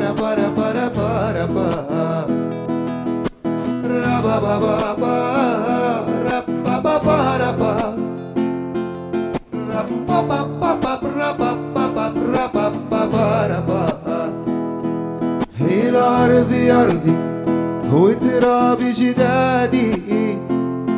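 Soundtrack song: a sung melody over plucked acoustic guitar.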